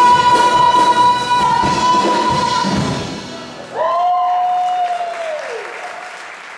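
A woman singing a long held high note with a live acoustic band, the music fading away about three seconds in. Just under four seconds in a new sung note swells up, is held, and slides down into an echoing fade near the end.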